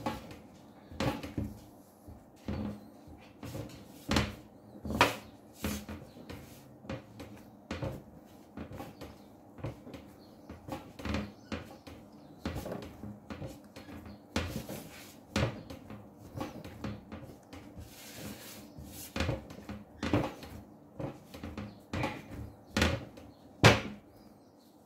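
Pizza dough being kneaded by hand on a glass tabletop, worked to bring out the gluten: irregular soft thumps and slaps, about one or two a second, as the dough is pushed down and folded over.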